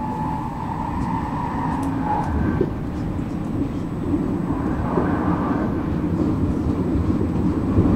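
Stockholm commuter train running along the track, heard from inside the carriage: a steady rumble of wheels and running gear, with a faint high whine that rises and fades.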